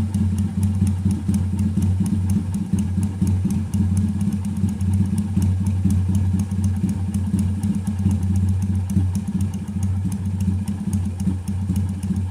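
Honda CB200 parallel-twin motorcycle engine idling steadily, with a fast, even ticking above the engine note.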